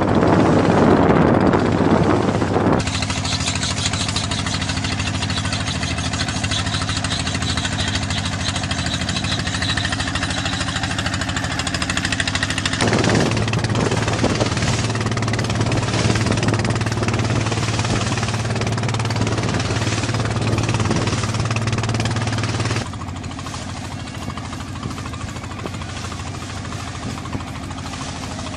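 An engine running steadily with a knocking rumble, its sound shifting abruptly about three, thirteen and twenty-three seconds in.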